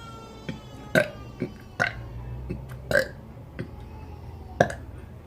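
A teenage boy burping, a series of short burps about a second apart.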